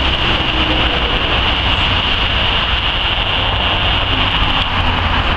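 Steady rushing background noise with an uneven low rumble and a constant high hiss; no shot is fired.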